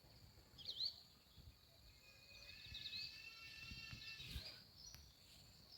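Faint outdoor evening ambience with bird calls: a short chirp about half a second in, then a longer call from about two seconds to past four, all over a steady high-pitched hum.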